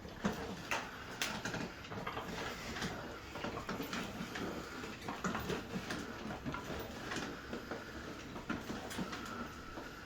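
Modified Roomba robot driving itself at slow speed, its drive motors and body rattling, with irregular knocks and clicks throughout. A steady high whine comes in near the end.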